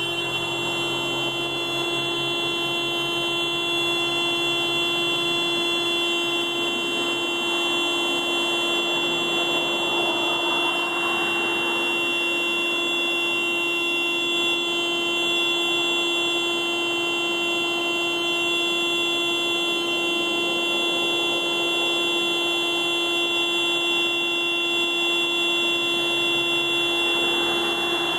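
Car alarm sounding the car's horn as one steady, unbroken tone that does not change in pitch or loudness.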